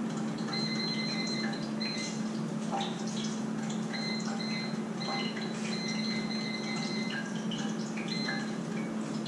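Water running at a kitchen sink, with scattered light clinks and taps, over the steady low hum of an air fryer running.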